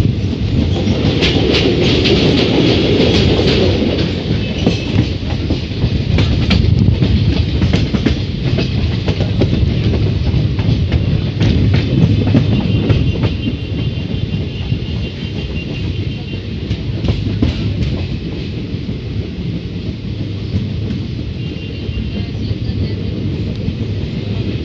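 Express passenger train running on the rails, heard from aboard: a steady heavy rumble with the wheels clicking over rail joints, and a thin high squeal now and then.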